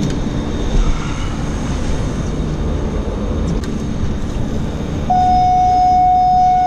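Steady low rumble of the boat's Yamaha 150 outboard motor running, with a faint hum. About five seconds in a single steady high tone starts and holds for about two seconds.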